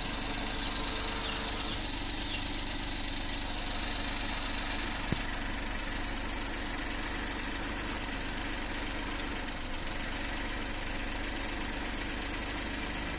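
Suzuki DA64 minivan's K6A three-cylinder engine idling steadily, running smoothly with a newly fitted ignition coil pack that has cured its misfire. A single short click about five seconds in.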